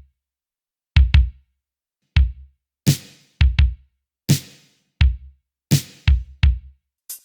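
Drum machine kick and snare played on their own: deep kick hits, several in quick pairs, with silence between. From about three seconds in, a snare with a long hissing tail lands three times, about every second and a half.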